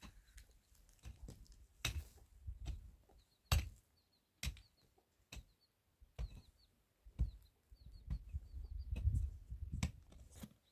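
Hand pick striking stony soil in sharp knocks, about seven irregular strikes, with earth and stones shifting between them. Faint small bird chirps in the background.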